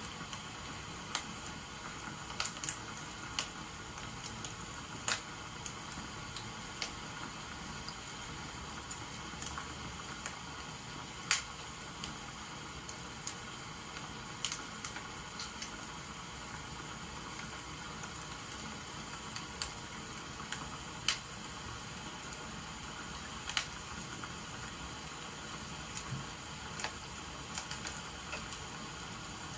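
Wood fire crackling over a steady hiss of rain: irregular sharp pops, one every second or few, above an even bed of noise.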